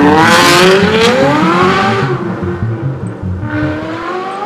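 Ferrari California V8 with a valved Fi aftermarket exhaust revving hard as the car accelerates past, its pitch climbing steeply and loudest in the first second, then easing off. It rises again near the end.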